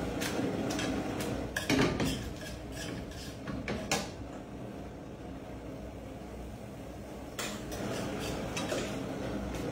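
Metal tongs clinking and scraping against a frying pan as tagliolini are tossed and stirred: a run of light clicks that thins out midway and picks up again near the end.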